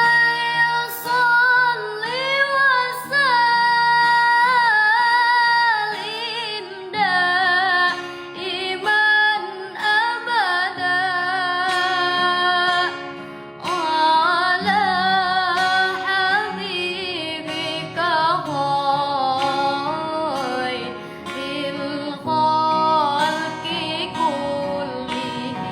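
Music: a woman singing long, ornamented notes with a wavering pitch over a steady held accompaniment.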